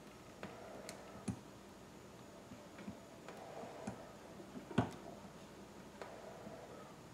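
Faint, irregular ticks and taps as a plastic welder's hot tip is worked against a plastic fuel tank, melting filler plastic into a crack; the loudest tap comes about five seconds in.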